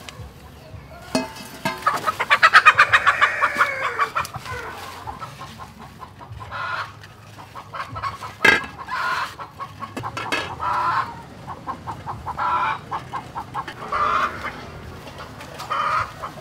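Chicken clucking: a fast, loud run of clucks about two seconds in, then short cluck phrases every second and a half or so. A single sharp knock about eight seconds in.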